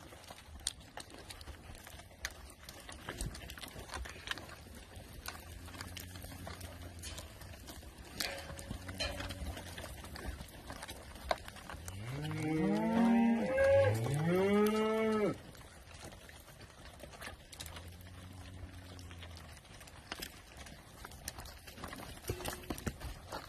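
Black beef cattle in a yard lowing quietly now and then, and one animal giving two long, loud moos back to back just past the middle, each rising and falling in pitch.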